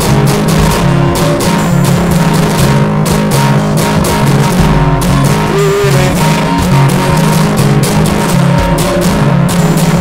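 Guitar music: a guitar strummed in a steady rhythm.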